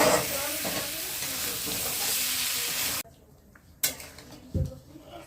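Food sizzling in hot oil in a cooking pan, a loud steady hiss that stops suddenly about three seconds in. After that come a sharp click and a dull knock of kitchen utensils and pans.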